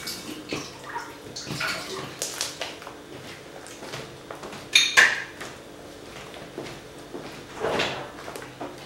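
Metallic blue fluffy slime, made with rinse-off hair-conditioner foam, being kneaded and stretched by hand: irregular wet, sticky squelches and crackles, with a louder sharp crackle about five seconds in.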